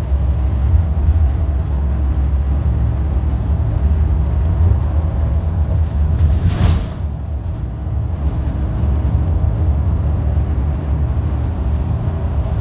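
Steady low rumble heard from inside a moving car pacing a double-stack intermodal freight train: road noise mixed with the train's rolling sound. A brief whoosh comes about six and a half seconds in.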